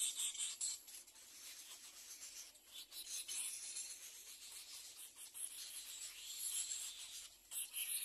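Little egret chicks begging in the nest: a high, hissing chatter in uneven bursts, louder at the start and again near the end.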